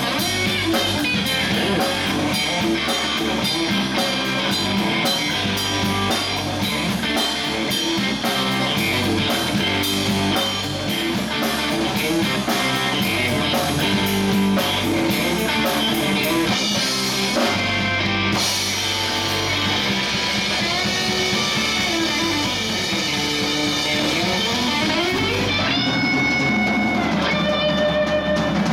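Live rock band playing loudly: electric guitar over bass guitar and a drum kit. Past the middle the cymbals drop away and the guitar holds long notes that bend up and down in pitch.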